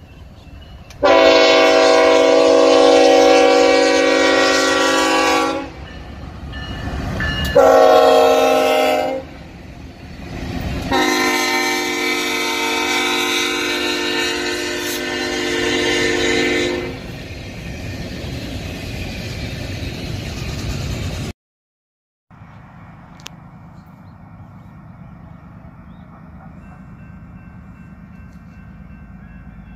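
Union Pacific GE C45ACCTE locomotive's multi-chime air horn sounding a long, a short and a long blast, the pattern of a grade-crossing warning, over the steady rumble of a freight train. After a sudden cut, a fainter steady rumble of an approaching train.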